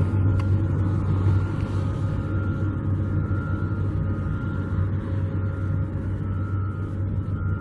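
Engine running steadily, a constant low hum with no change in speed.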